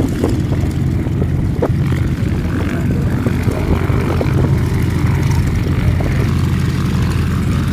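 A propeller aircraft's engine running with a steady drone as the plane flies its display.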